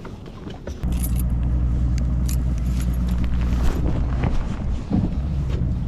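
Boat's outboard motor starting abruptly about a second in, then running steadily at a low, even idle, with a few light rattling clicks over it.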